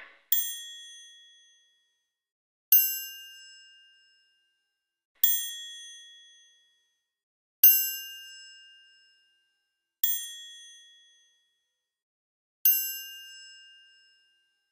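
A bell-like chime struck six times, one stroke about every two and a half seconds. The strokes alternate between two pitches, and each rings out and fades over about a second and a half.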